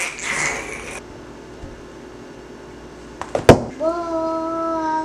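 A short noisy rush in the first second, then a sharp smack about three and a half seconds in, the loudest moment, followed by a toddler's long 'ooh' held on one steady pitch.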